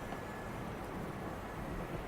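Steady outdoor weather ambience: an even, low rumbling wind-like noise with no distinct events.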